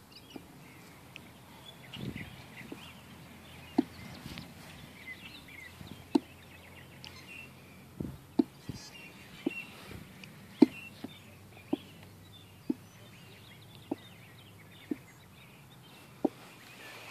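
Birds chirping in the background, with short sharp ticks about once a second from a toddler bucket swing rocking on its ropes.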